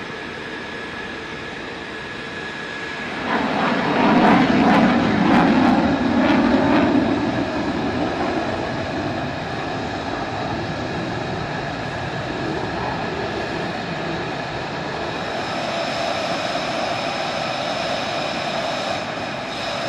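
Jet engine noise on a flight line: a steady rushing sound with a thin turbine whine. About three seconds in it swells into a louder rush that lasts a few seconds before settling back to a steady level.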